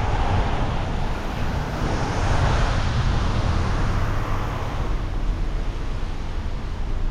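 Wind rumbling on the microphone over road noise, with a passing vehicle's hiss swelling and fading about two to five seconds in.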